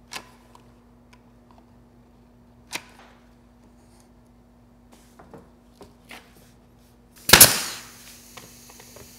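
Pneumatic staple gun firing once about seven seconds in, a sharp crack followed by a short trailing rush, driving a staple through a laminate T-molding transition strip. Before it there are only a few faint knocks and clicks of handling.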